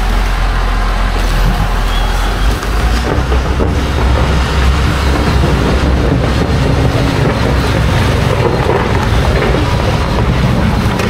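A vehicle running with a loud, steady rumble.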